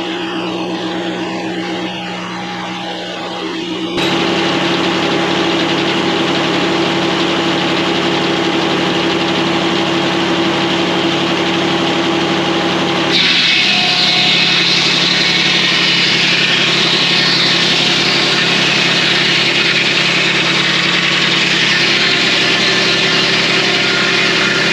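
Circle sawmill running on its diesel engine: a steady engine drone with a high hiss. About 4 s in and again about 13 s in the sound changes abruptly, becoming louder and hissier after the second change.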